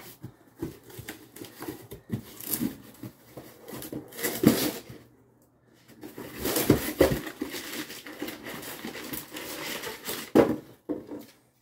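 Metal hand tools and sockets clinking, rattling and knocking irregularly, with a few louder knocks and a brief lull about five seconds in.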